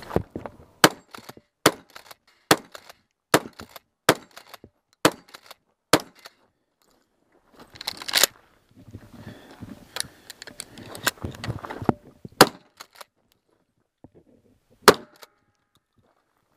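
Remington 870 pump-action shotgun firing a quick string of about eight shots over the first six seconds, then three more spaced shots, the last near the end. A scuffling stretch of noise comes between the later shots.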